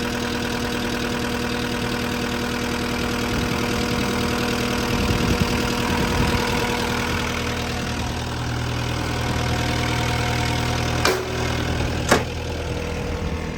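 Cat 246D3 skid steer's diesel engine idling steadily. Two sharp clicks come a second apart near the end.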